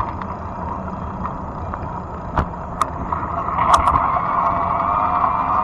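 Fat-tire electric bike riding along, with a steady hum and a low rumble. A few sharp clicks or rattles come around the middle, the loudest a pair a little past halfway.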